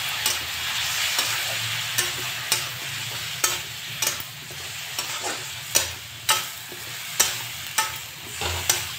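Diced potatoes and onions frying in oil with ground spices in a metal kadhai, a steady sizzle, while a spatula stirs them, its strokes knocking on the pan in frequent sharp clicks. This is the stage where the masala is fried with the vegetables.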